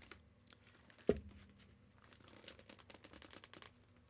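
A single sharp click with a low thud about a second in: a rod of a Ulanzi mini Bowens octagonal softbox being forced until it clicks into place, which takes a lot of pressure. Faint ticks and handling noise from the softbox frame otherwise.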